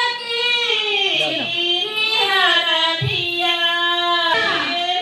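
A high solo voice singing long, drawn-out notes that slide down from one pitch to the next.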